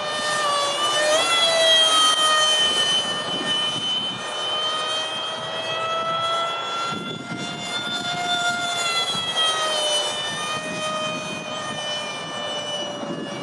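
Freewing Eurofighter RC jet's electric ducted fan, a six-blade WeMoTec Midi, whining in flight. The pitch rises about a second in, dips briefly around seven seconds and swings up and down again near the end; it is loudest about two seconds in.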